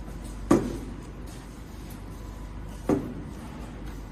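Automatic bottle filling and capping line running, a steady machine hum with a sharp clunk twice, about two and a half seconds apart, as the machine cycles.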